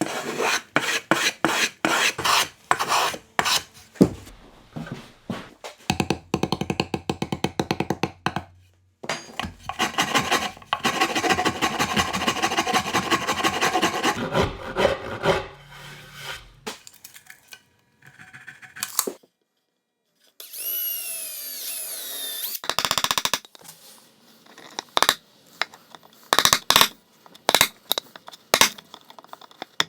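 Hand tools working wood: quick rasping and filing strokes in several short bursts, broken by pauses. About two-thirds of the way through comes a stretch of repeated high gliding squeaks, and the end holds scattered sharp clicks and knocks.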